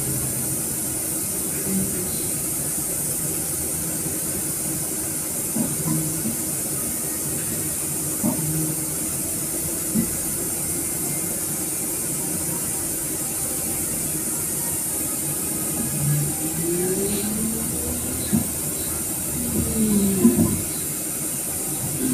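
Street traffic noise: a steady wash with a constant high hiss, with a few short rising and falling engine tones toward the end.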